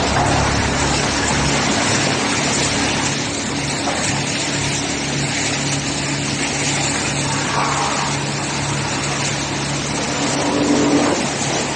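Industrial wood crusher running steadily: a constant motor hum under a dense, even grinding noise.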